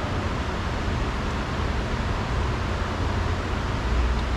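Steady background noise: a low rumble with a hiss over it, with no distinct knocks or clicks.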